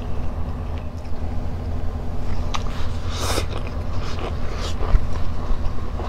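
Close-miked eating sounds: a person chewing and picking at food by hand, with scattered mouth clicks and smacks and a louder, noisier burst about three seconds in. A steady low hum runs underneath.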